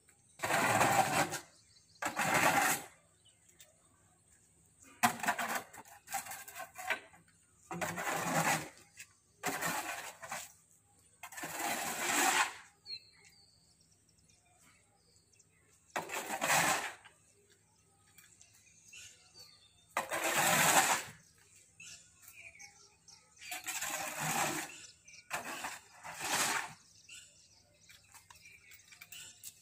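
Long-handled scraper pushed across a concrete floor, scraping up buffalo dung: about eleven separate scraping strokes, each under a second, at uneven gaps of one to four seconds.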